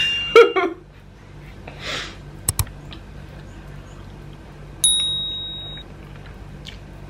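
Cutlery clinking against a ceramic plate. There are a few quick clinks in the first second, two sharp clicks about two and a half seconds in, and one clear ringing ding about five seconds in that dies away over a second.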